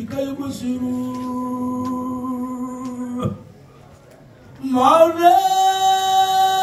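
A man's voice chanting an Islamic devotional mawlid chant into a microphone. He holds one long steady note, breaks off briefly, then slides up about five seconds in to a higher, louder held note.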